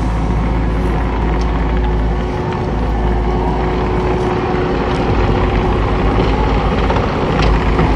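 Engine of heavy earthmoving machinery running steadily with a low rumble, a few faint clicks over it, getting slightly louder near the end.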